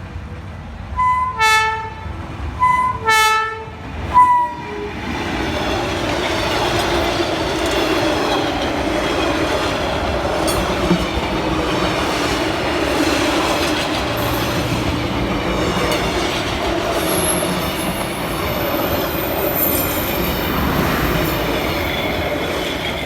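Freight train's locomotive horn sounds three times, two longer blasts and a short one, then the train rolls past with a steady rumble of wheels on rail and a high squeal from the wheels partway through.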